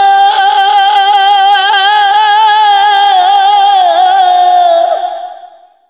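A man singing one long held note with vibrato in a Punjabi Sufi kalam recitation, the pitch dipping slightly near the end as the note fades away.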